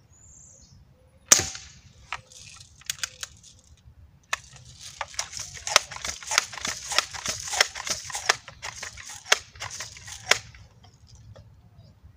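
Crosman M4177 multi-pump pneumatic air rifle fired once about a second in, followed by a few clicks. From about four seconds in there is a run of repeated pump strokes over roughly six seconds as the rifle is pumped up for the next shot.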